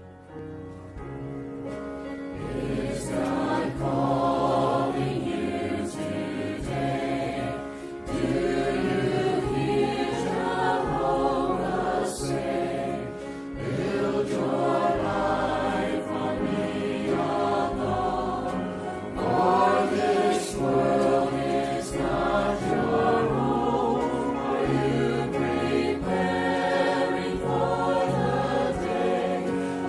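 Church choir singing a gospel hymn with instrumental accompaniment, fading in at the start.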